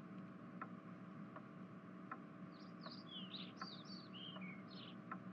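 Faint background ambience: a bird chirping in a quick run of short high calls midway through, over soft ticks at an even pace, about one every three-quarters of a second, and a low steady hum.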